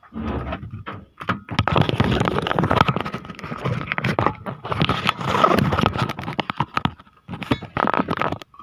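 A claw crane machine being unloaded from a pickup's cargo bed: repeated scraping and knocking, with short breaks about a second in and near the end.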